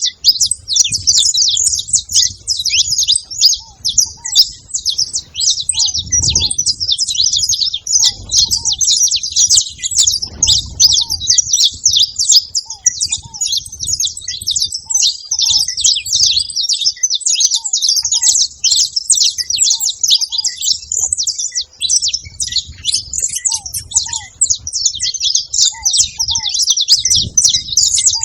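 Saffron finch chirping and singing without pause in a dense stream of rapid, high notes. Faint short lower notes come in pairs every second or two.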